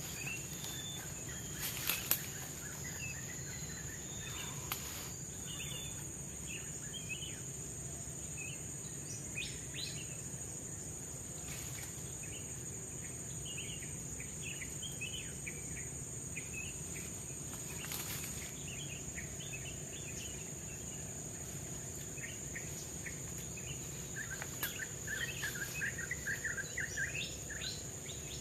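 Forest ambience: a steady high-pitched insect drone with scattered bird chirps throughout, busiest near the end, and a few brief sharp clicks.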